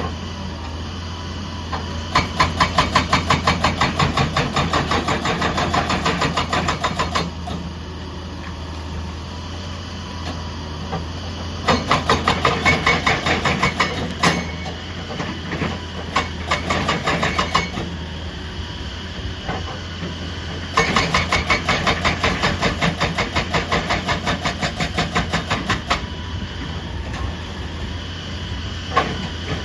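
Excavator at work: its diesel engine runs steadily throughout, and three times it breaks into spells of rapid, rhythmic metallic clanking lasting a few seconds each.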